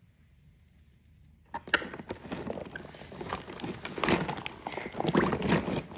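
About a second and a half of near silence, then a busy run of clicks, knocks and rustling from toys being rummaged through and handled.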